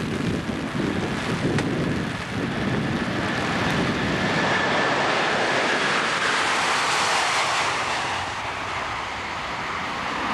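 Airbus A330 twin-engine jetliner at takeoff power, a loud rushing noise with a steady high whine that builds over the first few seconds and stays loud as the jet rolls past and lifts off. Wind buffets the microphone for the first couple of seconds.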